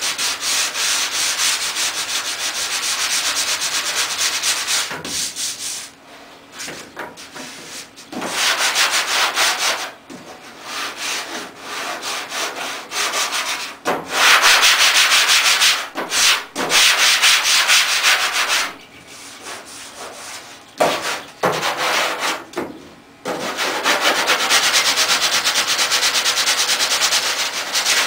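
Sandpaper rasping over body filler and high-build primer on the steel cab of a 1963 Chevrolet C10 pickup, in spells of a few seconds broken by short pauses.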